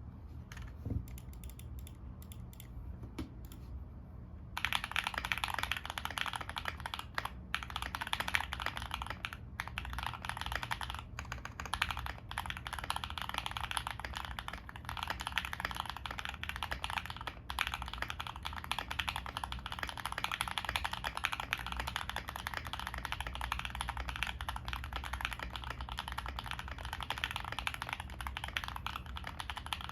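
Typing on a CIY GAS67 mechanical keyboard with a carbon fibre plate, foamless, fitted with Bsun Raw switches lubed with Krytox 205g0 and doubleshot ABS Cherry-profile keycaps. A few scattered key presses at first, then steady fast typing from about four and a half seconds in, with a few brief pauses, over a faint low hum.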